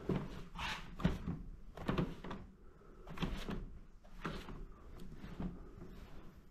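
Wide flat paintbrush dragging acrylic paint across paper, a short swish with each stroke, about a second apart.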